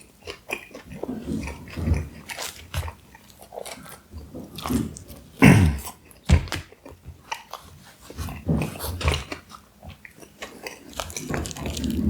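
A person biting and chewing food close to the microphone, a string of uneven mouth noises; the loudest comes about five and a half seconds in.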